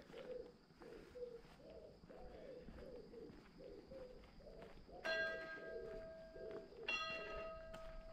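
A bell strikes twice, about two seconds apart, starting about five seconds in, and each stroke rings on. Before and under the bell, a pigeon coos in a run of short low phrases.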